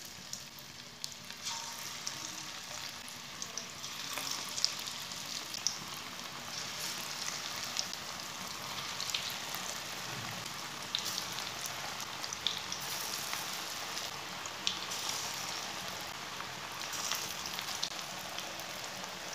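Onion pakoras in gram-flour batter deep-frying in hot oil in an aluminium kadhai: a steady sizzle with many scattered crackles and pops. The sizzle grows fuller in the first few seconds as more pieces go into the oil.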